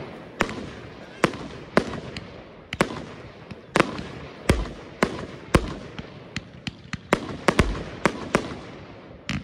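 Svea Fireworks 'Spartacus' consumer firework cake (76 shots from 20, 25 and 30 mm tubes) firing: a steady run of sharp bangs, about two a second, with a crackling hiss filling the gaps between them.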